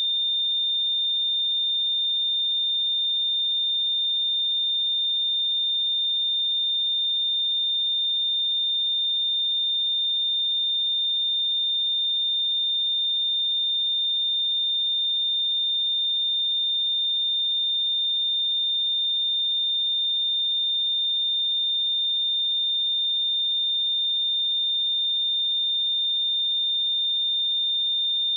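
A steady pure sine-wave test tone at 3617 Hz, a single high-pitched note held at a constant level.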